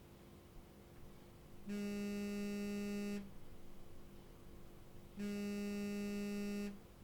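A buzzy electronic tone sounding twice, each time for about a second and a half with about two seconds between, over a faint steady hum.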